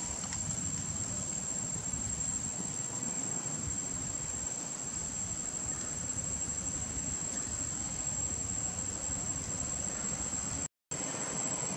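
Steady high-pitched drone of an insect chorus, with a low rumble of outdoor background noise underneath; the sound cuts out for a moment near the end.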